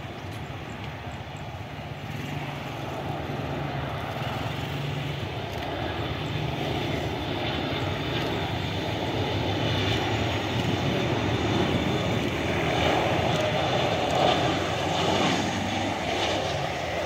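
Jet engines of a Boeing 737-800 airliner coming in to land: a steady rumble and whine that builds in loudness as the plane draws near, loudest about two thirds of the way through.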